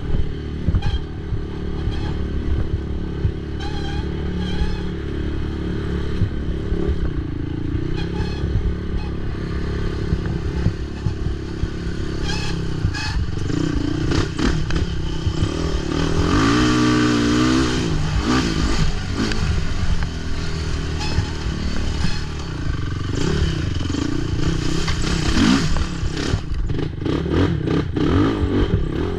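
Racing ATV engine running hard over rough cross-country ground, its revs rising and falling, with a marked rev change about halfway through. Clattering and knocks from the machine over bumps run throughout.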